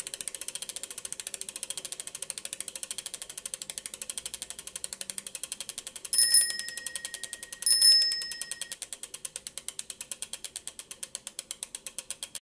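Bicycle rear-hub freewheel ticking rapidly and evenly as the wheel coasts, and a bicycle bell rung twice, about a second and a half apart, just past the middle.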